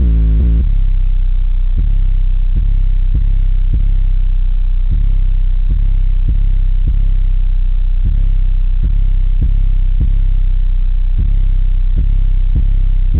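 Car stereo subwoofers playing a bass-heavy song very loud: a deep, steady bass with a regular beat hitting about every two-thirds of a second.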